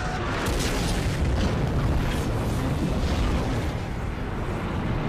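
Movie sound effects of an airliner crashing: a continuous heavy rumble of explosions and fire, with a few sharp cracks of debris early on.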